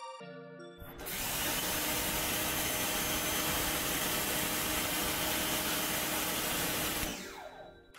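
CAT 1800 PSI electric pressure washer running with the trigger held, spraying through a 25° nozzle at about 1000 PSI: a steady hiss of the water jet with a faint motor hum. It starts about a second in and dies away about seven seconds in.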